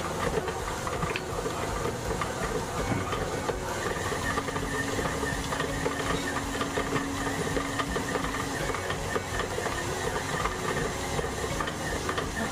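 Heavy Duty stand mixer running steadily, its motor and gearing whirring as it mixes sweet-bread dough with the salt just added.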